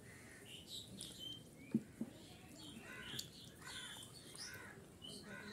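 Fingers squishing and mixing rice with dal on a plate, with two sharp clicks about two seconds in. A bird calls several times in the background during the second half.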